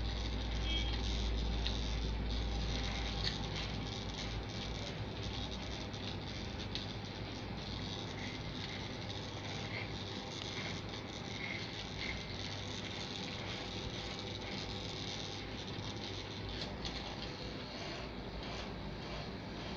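Corded electric hair clipper buzzing as it cuts beard stubble on the neck: a steady low hum with a scratchy rasp of the blades through hair.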